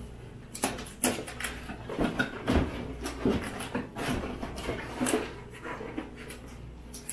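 Cardboard kit boxes being handled: lifted, slid against each other and set down. The result is an irregular series of short rustles, scrapes and light knocks.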